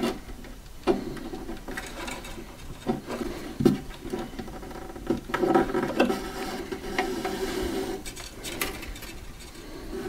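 Hands handling thin wires and working them through holes in a wooden dollhouse wall: irregular rubbing and rustling with light taps and clicks, the sharpest knocks about a second in and just under four seconds in.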